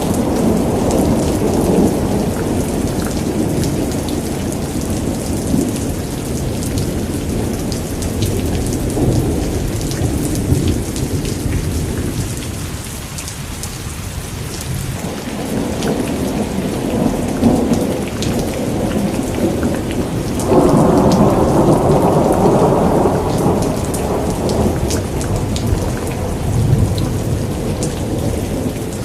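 Heavy rain falling steadily with thunder rumbling. The rumble eases off briefly around the middle, then a louder thunderclap breaks about twenty seconds in and rolls away.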